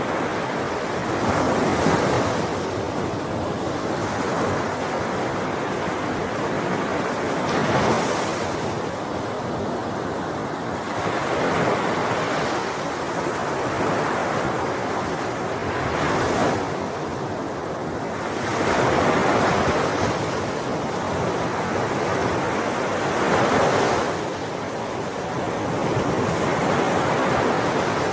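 Ocean waves breaking and washing on a shore, a continuous surf hiss that swells every few seconds as each wave comes in.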